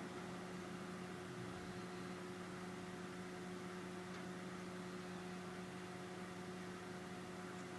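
A steady low hum, one constant tone with a fainter higher one above it, over a light hiss.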